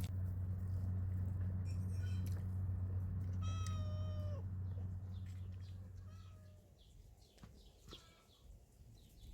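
A steady low hum that stops about two-thirds of the way through, with an animal call over it: one drawn-out pitched call about three and a half seconds in and a shorter, fainter one a couple of seconds later, plus a few light clicks.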